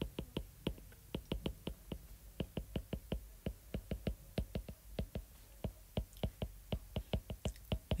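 A stylus tip clicking and tapping on a tablet's glass screen while handwriting, making quick, faint, irregular clicks several times a second.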